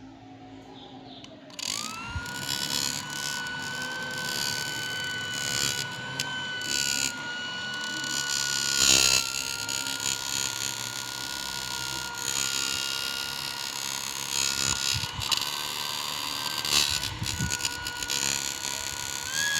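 Electric fan making a steady high-pitched whine over a rough rasping noise, the 'snoring' of a noisy fan. The whine comes in with a short rising glide about two seconds in and then holds.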